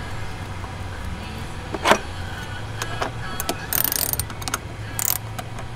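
Hand tools clinking and scraping against a car battery's terminal clamps and cables as they are loosened and refitted: one sharp clink about two seconds in, then short metallic rattles and scrapes, over a steady low hum.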